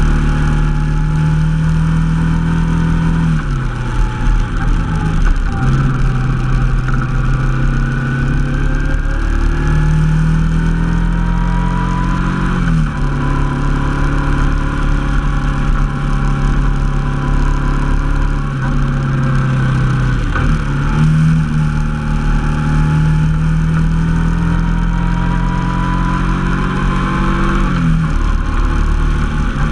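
Honda NT700V Deauville's V-twin engine running while the bike is ridden, with wind noise over it. The engine's pitch drops sharply a handful of times and climbs or holds steady in between, as the rider works the throttle and gears.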